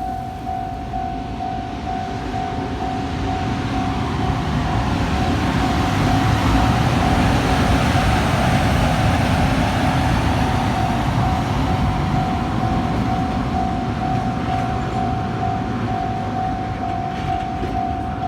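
Freight train running past a Japanese level crossing, its rumble swelling to loudest in the middle and easing off, while the crossing's warning bell rings in a steady, even pulse.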